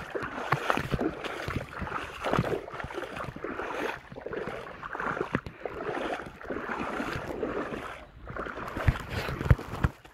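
Legs wading through shallow creek water: repeated sloshing and swishing that swells with each stride, with scattered knocks and two louder ones near the end.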